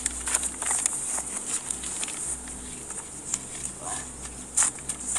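Paper rustling and crinkling as an envelope is handled and torn open by hand, with irregular sharp crackles.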